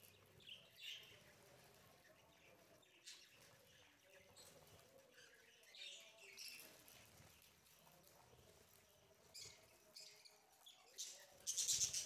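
Budgerigars chirping faintly in short, scattered calls, with a louder flurry of chirps near the end.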